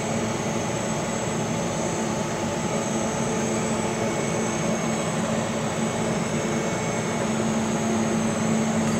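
Chinese laser cutter running a trace of the job outline without cutting: a steady whir of its fans and air system with a low hum underneath, as the gantry carries the laser head around the frame.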